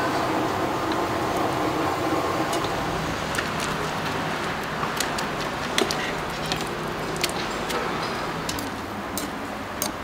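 Steady noise of a large pot of noodles boiling on the stove. Sharp clicks and clinks of wooden chopsticks and a wire-mesh noodle strainer against the steel pot come several times, mostly in the second half.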